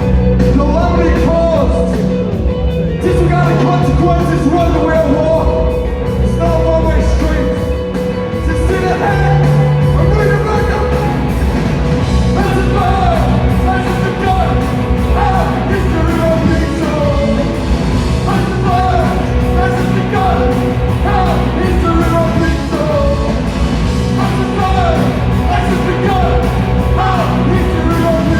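Live rock band playing loudly: drums, bass and guitars. A singer's voice comes in with short repeated phrases from about twelve seconds in.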